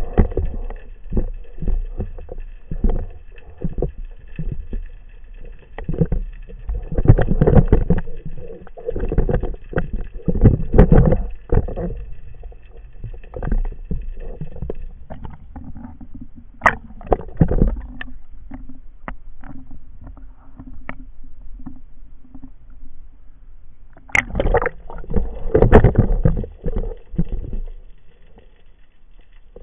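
Muffled water sloshing and irregular knocks and bumps, picked up underwater by a camera in a waterproof housing mounted on a speargun, while the diver handles his catch at the surface. Quieter in the middle, with a faint steady hum.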